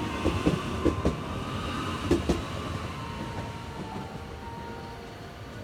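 JR West 521 series four-car electric train pulling away: its wheels clack over rail joints several times in the first couple of seconds as the last cars pass, over a steady whine. The sound then fades as the train moves off.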